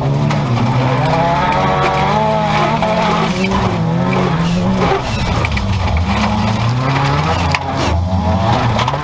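Stock car's 16-valve turbo engine, heard from inside the cabin, revving hard, its pitch rising and falling again and again, dropping around the middle before climbing again, over the rumble of the car on the dirt track.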